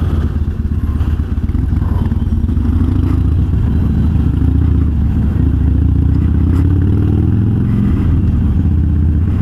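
Harley-Davidson Sportster's V-twin engine running under way through Vance & Hines Twin Slash 3-inch slip-on mufflers with quiet baffles, its note rising and falling slightly with the throttle.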